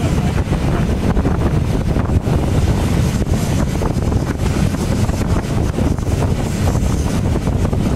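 Wind buffeting the microphone alongside a moving steam locomotive, over the steady rumble of the running train.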